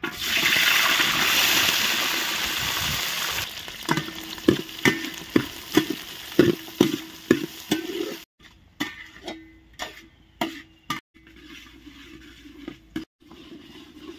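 A kilo of chopped big onions hits hot oil in a kadai and sizzles loudly for the first few seconds. They are then stirred, with the utensil scraping the pan about twice a second while the onions keep frying more quietly. Near the end there are only a few scattered strokes.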